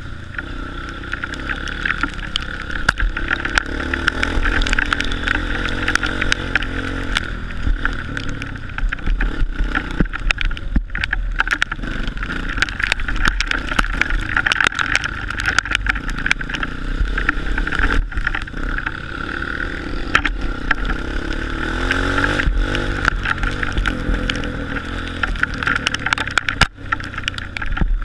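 Honda CRF230 single-cylinder four-stroke trail bike engine running and revving off-road, muffled as heard through a waterproof action-camera housing, with frequent knocks and rattles from the bumpy ride. The revs rise and fall briefly a little over twenty seconds in.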